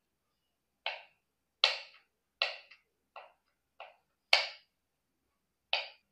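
Kitchen knife slicing button mushrooms on a wooden cutting board: seven separate, unevenly spaced chops, each a short knock of the blade on the board.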